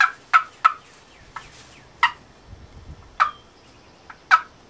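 Wooden turkey box call worked by hand, giving about seven short, sharp yelps spaced unevenly, imitating a wild turkey to locate or call in a gobbler.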